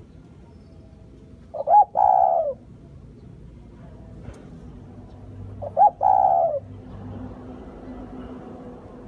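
Spotted dove (cu gáy) cooing: two calls about four seconds apart, each a short note followed by a longer, slightly falling coo.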